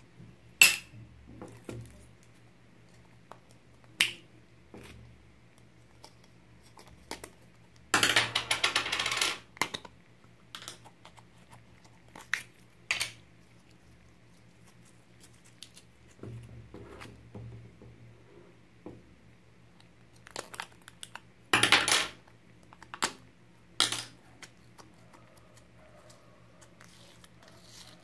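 Slime and its small plastic containers being handled: scattered sharp clicks and taps, and crackling, popping bursts from slime being squeezed and stretched. The longest crackle lasts about a second and a half, a third of the way in. A faint low hum runs underneath.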